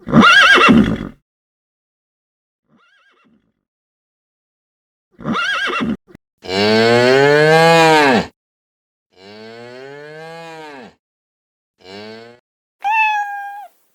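Cattle mooing: several separate calls with silent gaps between them, the longest and loudest about six to eight seconds in, rising and then falling in pitch. A short, much higher-pitched call comes near the end.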